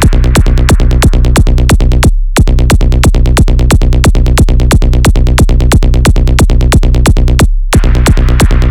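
Electronic techno-trance track with a fast, even pulse of sharp hits, about five or six a second, over a steady bass. The hits drop out for a moment about two seconds in and again near the end, leaving only the bass.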